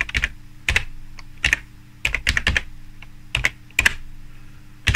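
Computer keyboard keys clicking as text is typed, a few keystrokes at a time with short pauses between.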